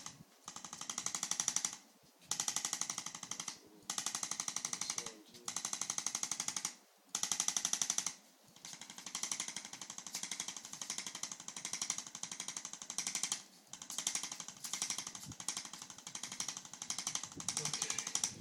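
Electric percussive chiropractic adjusting instrument delivering rapid repeated thrusts into an alpaca's upper back. The thrusts come in bursts of a second or two with short pauses between.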